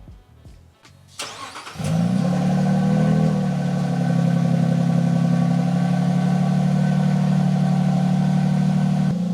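Lexus GX550's twin-turbo V6 starting through a titanium axle-dump exhaust: a short crank about a second in, then it catches with a brief flare of revs and settles into a steady idle. The idle drops slightly in level near the end.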